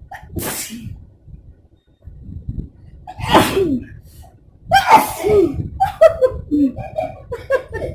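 Sneezes brought on by Chiiknii sneezing powder. A short burst comes near the start, then two loud sneezes about three and five seconds in, each with a voiced cry that falls in pitch. Short vocal sounds follow near the end.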